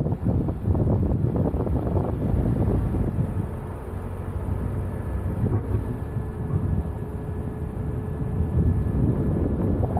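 Renault Koleos SUV driving off-road on sand: a steady low rumble of engine and tyres with wind buffeting the microphone, and a faint steady whine coming in about halfway through.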